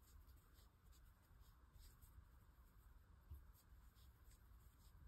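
Near silence with faint scratchy rustles of yarn being drawn through stitches by a crochet hook, made up of short soft ticks scattered through.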